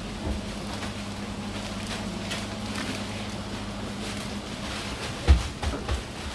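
A continuous band sealer runs with a steady electric hum while plastic coffee sachets are fed through it, their packets rustling and clicking lightly. The hum thins out about four seconds in, and a single loud thump comes near the end, followed by a few lighter knocks.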